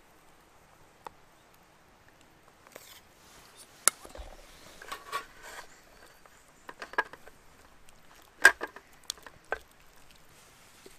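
Chopsticks clicking and scraping against an aluminium mess tin (Mestin) while tossing spaghetti with ketchup. The sound is an irregular scatter of sharp taps and short wet scrapes, with the loudest click about two-thirds of the way in.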